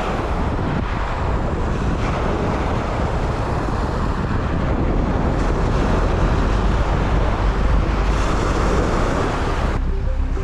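Strong wind buffeting the microphone over surf washing onto the shore, a steady rushing noise with a heavy low rumble. Just before the end it cuts abruptly to background music.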